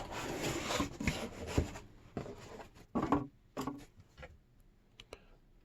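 Cardboard box being opened and its contents handled: about two seconds of scraping and rustling, then a few short knocks and rustles, and faint clicks near the end.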